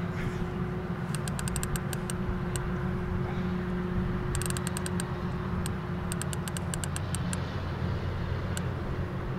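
Boat engine idling steadily, a low hum with a steady tone. Three short runs of faint, rapid, high clicks sound over it, one near the start, one around the middle and one a little later.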